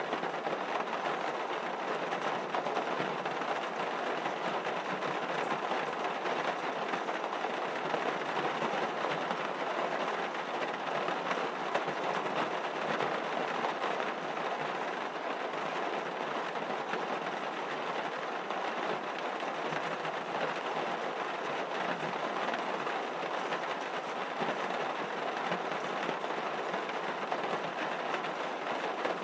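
Steady, even rushing noise with no voices, holding level throughout.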